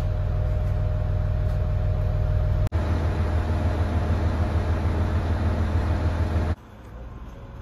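JR East HB-E210 series hybrid diesel railcar standing with its engine running: a steady low hum with a faint steady whine. The sound changes abruptly twice, dropping to a much quieter hum about a second before the end.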